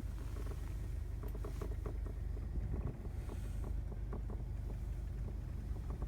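Air conditioner running with an abnormal noise: a steady low rumble with irregular ticking over it.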